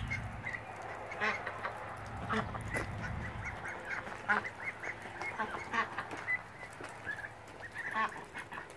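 Domestic ducks quacking: short calls repeated every second or so.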